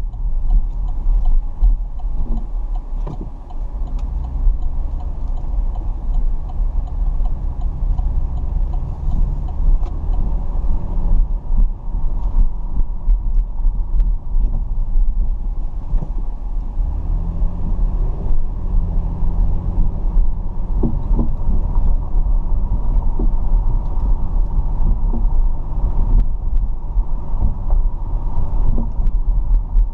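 Steady low rumble of a car driving, with engine hum and faint ticks; the engine note grows stronger a little past halfway.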